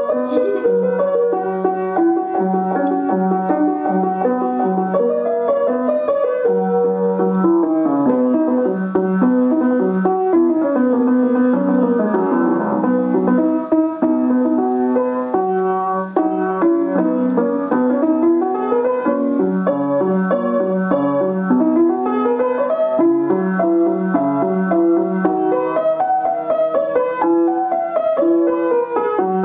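Piano being played: a continuous piece with repeated low notes and quick runs up and down the keyboard.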